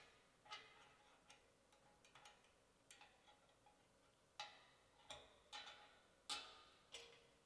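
Light metallic clicks and clinks of thin metal rods being handled and fitted into a flat metal grill ring on a steel welding table, irregular taps with a short ring, the loudest about six seconds in.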